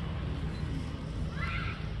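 Steady low rumble of a motor vehicle engine running, with a short, high-pitched animal call that rises slightly about one and a half seconds in.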